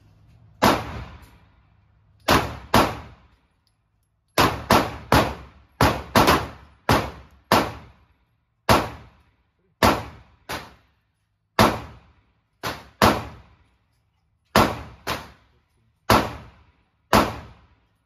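Canik TTI Combat 9mm pistol firing about twenty shots, in quick strings of two to five with short pauses between. Each shot rings briefly off the walls of the indoor range.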